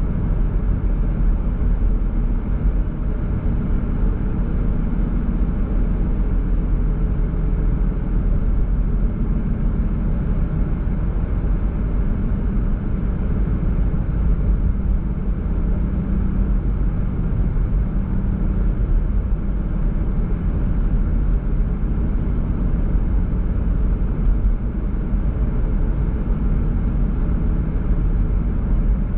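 A car driving along a road: steady, low road noise from the tyres and engine, unchanging throughout.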